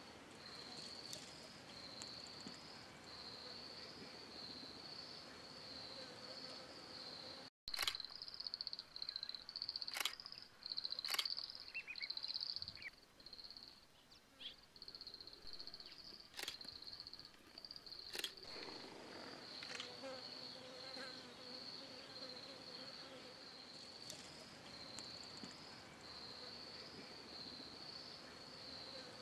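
Insects chirring: a steady, high, pulsing trill throughout. It cuts out for a moment about a third of the way in, and a handful of sharp clicks and rustles follow.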